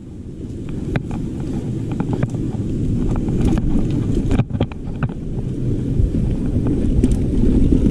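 Wind buffeting the microphone of a mountain bike in motion, a low rumble that grows steadily louder as the bike gathers speed, with scattered clicks and knocks from the bike rattling over the rough trail.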